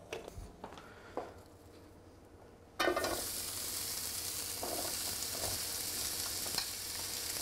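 Chopped onion scraped from a plate into hot oil in a frying pan. The oil starts sizzling suddenly about three seconds in and keeps up a steady sizzle, with a few short scrapes of the slotted spoon against the plate.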